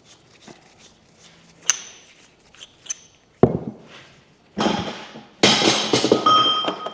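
Metal tools and parts clinking and clattering as they are handled: a few light clinks with short metallic rings, a sharp knock about three and a half seconds in, then a denser clatter with ringing tones near the end.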